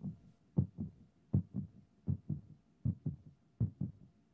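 Recorded heartbeat: steady paired lub-dub thumps, about 80 beats a minute.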